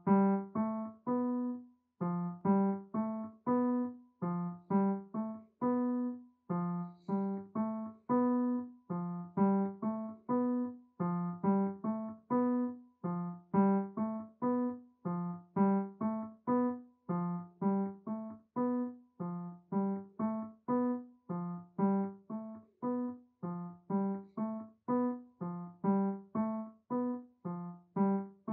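Solo piano playing a repeating figure of short notes, about three a second, each note fading quickly.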